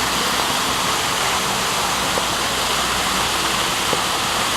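Steady rushing of falling water from an indoor waterfall, with a couple of faint ticks.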